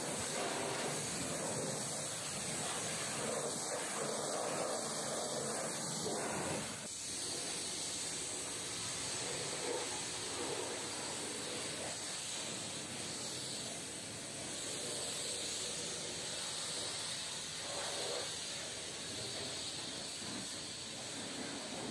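High-pressure washer jet hissing steadily as it sprays a truck trailer's wheels and wheel arches, changing about seven seconds in as the jet moves onto the trailer's tarpaulin curtain side.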